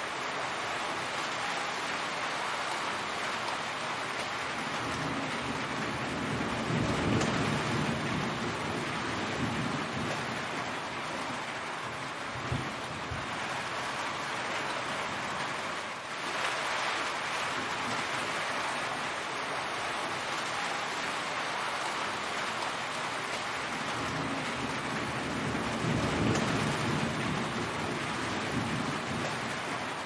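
Heavy rain falling steadily, an even hiss with water running off a roof's eaves. Two swells of low rumble come through, about a quarter of the way in and again late on.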